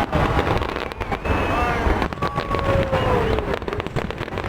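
Fireworks going off in rapid bursts of bangs and crackles over a low rumble, with a crowd's voices calling out over them.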